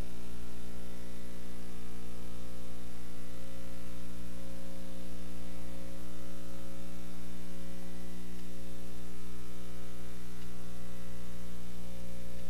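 Steady electrical mains hum with a buzzy stack of overtones, unchanging in loudness, coming through the audio line.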